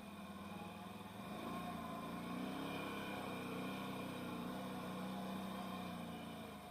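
Can-Am Outlander 1000R XMR ATV's V-twin engine running, growing louder about a second in, holding steady, then dropping away near the end.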